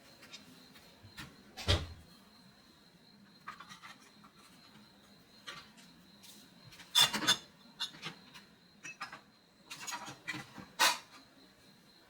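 Containers and food items being handled and set down while a refrigerator is sorted: scattered knocks, clinks and rubbing. There is a thump near the start, a burst of clatter about midway and a sharp knock near the end.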